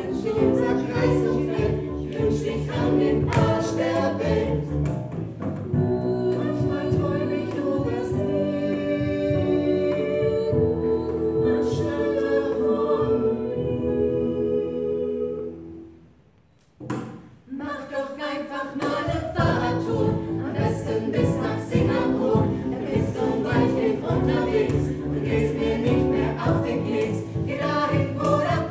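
A mixed five-voice vocal group sings a German pop song live in close harmony, with held chords in the middle. A little past halfway the voices break off together for a moment, then the song picks up again.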